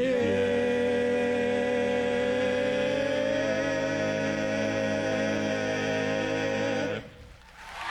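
A cappella vocal group holding the song's final chord, several voices sustained together for about seven seconds and then released at once.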